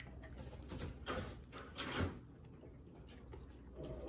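Hands kneading and squishing wet glue slime in a plastic tub: soft sticky squelching, with a couple of louder squelches about one and two seconds in.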